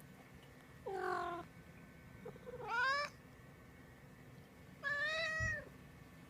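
A domestic cat meowing three times, each call about half a second long and spaced about two seconds apart. The first call falls slightly in pitch, the second rises and the third arches up and down.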